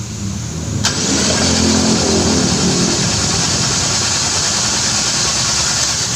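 Nissan Juke engine running, swelling in level for a couple of seconds and then settling to a steady run. About a second in a sharp click is followed by a steady hiss over the engine.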